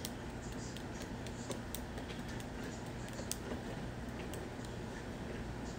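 Light, scattered clicks and taps of a tin can being handled and emptied at the rim of a steel pot, over a steady low hum.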